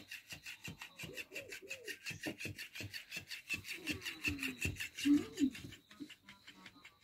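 Flopping fish cat toy wagging against fabric: a fast, even rasping beat of about six strokes a second. Over it in the middle come a few soft, low cooing voice sounds.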